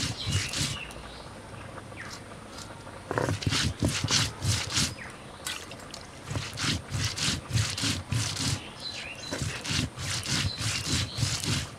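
Stone roller grinding dried red chillies into a wet paste on a flat grinding stone, in rhythmic back-and-forth strokes of stone scraping on stone. The strokes pause for about two seconds near the start and briefly again about halfway through.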